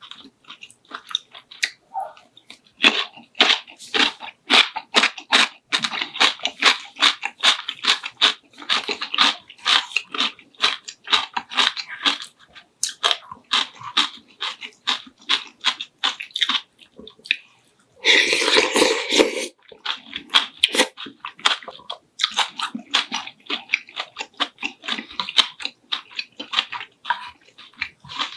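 Close-miked eating: rapid, crunchy chewing and biting with many wet clicks. About two-thirds of the way through there is a brief, louder rush of noise.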